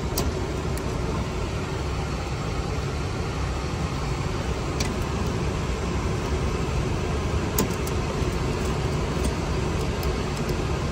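Steady low rumbling background noise inside a Boeing 737 cabin on the ground, with a few faint sharp clicks scattered through it.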